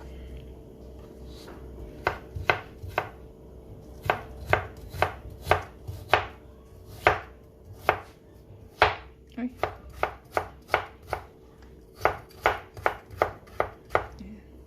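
A knife cutting peeled ginger into strips on a cutting board: a run of sharp, irregular knocks of the blade striking the board, a few per second, starting about two seconds in.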